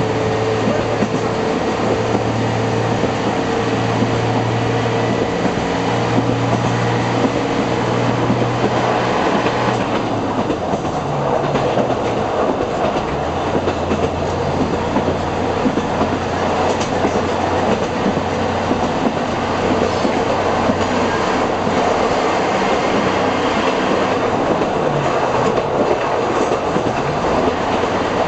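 Diesel railcar running along metre-gauge track, heard from inside the driver's cab: a steady engine hum under constant wheel-on-rail noise with light clicks. About halfway through, the engine's hum drops to a lower pitch.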